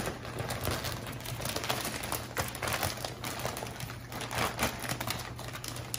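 Clear plastic bag wrapped around a dog bed crinkling and rustling as it is handled, a run of irregular crackles.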